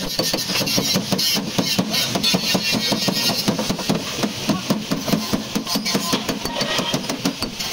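Sheet-steel car door panel struck rapidly with a serrated body spoon against a hand-held steel dolly: a quick run of sharp metallic taps along a freshly welded patch seam, flattening it.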